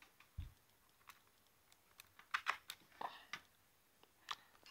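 Scattered soft clicks and taps with one low thump about half a second in: a USB stick being handled and plugged into a laptop's USB port.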